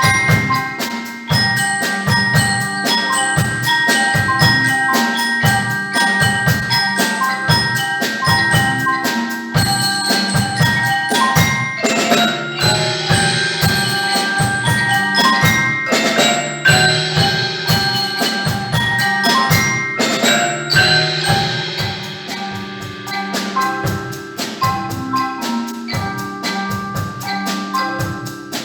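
Percussion ensemble playing a fast piece on tuned mallet percussion with drums: rapid, evenly spaced struck notes that ring on, with bursts of high shimmering noise about twelve seconds in and again about twenty seconds in.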